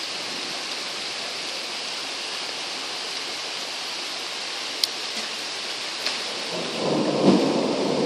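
Heavy thunderstorm rain pouring steadily. About six and a half seconds in, a roll of thunder rumbles up, peaks a second later and fades.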